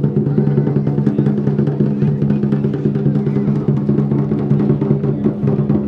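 Chinese lion dance percussion: a drum beaten in fast, dense strokes with a hand-held gong ringing along, steady and loud throughout.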